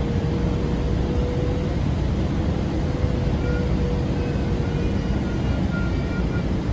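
Steady cabin roar inside a Boeing 777-200LR on final approach: engine and airflow noise, heaviest in the low range, unchanging in level. A faint steady hum sits under it in the first half, and faint high tones come in during the second half.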